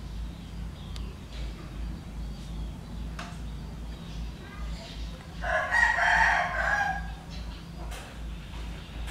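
A single loud animal call about a second and a half long, a little past halfway through, over a low pulsing hum.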